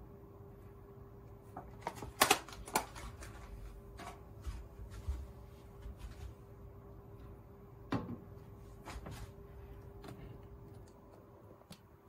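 Clear plastic food pack handled and set down on a kitchen counter: a few sharp plastic clicks and knocks, the loudest about two seconds in and another about eight seconds in, over a faint steady hum.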